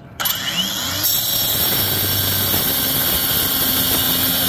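Battery-powered Kobalt angle grinder starting up with a sudden whine, then its cut-off wheel biting into a steel nut about a second in and grinding through it with a steady, loud, hissing shriek.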